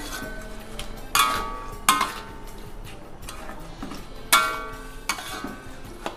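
Metal spatula stirring prawns in a metal wok, knocking against the wok several times; each knock rings briefly with a metallic tone. The loudest knocks come about a second in, just before two seconds, and past four seconds, with lighter scraping between them.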